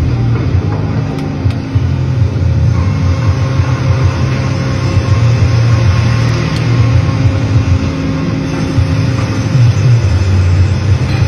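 Sawmill band-saw headrig with its log carriage and conveyors running, a loud steady machine drone with a deep hum.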